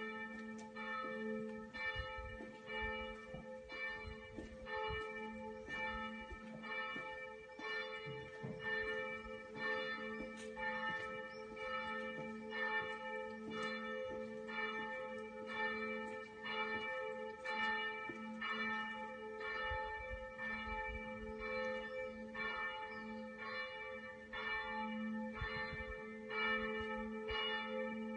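Church bells ringing on and on, struck in a steady rhythm of roughly one and a half strokes a second, each stroke's tone ringing on under the next.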